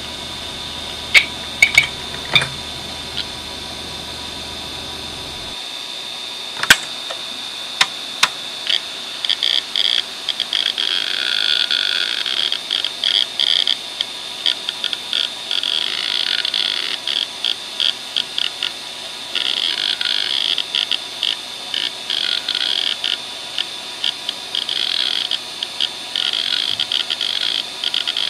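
Western Digital WDAL2540 2.5-inch 540 MB laptop hard drive running with a steady high spindle whine. A few sharp head clicks come in the first eight seconds. From about nine seconds in, continuous rapid seek chatter comes in waves as a seek test sweeps the heads back and forth across the platters.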